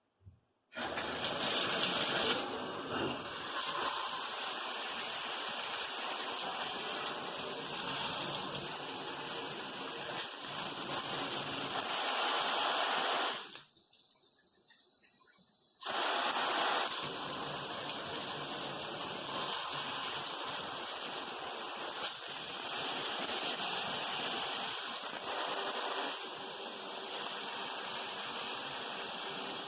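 Handheld shower head spraying water with a steady hiss. The spray sound drops out for about two seconds around halfway, then comes back.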